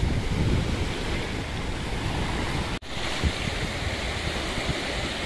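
Small sea waves breaking and washing up on a sandy beach, with wind buffeting the microphone. The sound drops out for an instant about halfway through.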